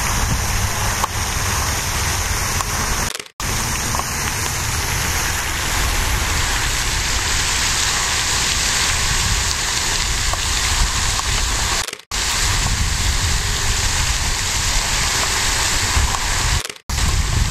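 Steady splashing of a pond fountain's spray mixed with wind rumbling on the microphone, cut by brief silent gaps about three seconds in, at about twelve seconds and near the end.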